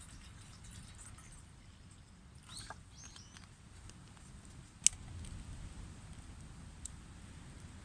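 Quiet outdoor ambience with a low rumble. A few short chirping calls come about two and a half seconds in, and a single sharp click about five seconds in, followed by a fainter click near the end.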